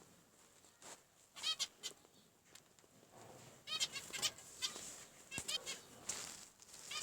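Zebra finches calling: short, repeated calls that come in scattered bursts with quiet gaps between them.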